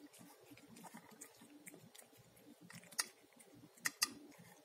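A cat chewing and eating enoki mushrooms out of a ceramic bowl: a quick, irregular run of small wet mouth sounds. Three sharp clicks stand out, one about three seconds in and two close together about four seconds in.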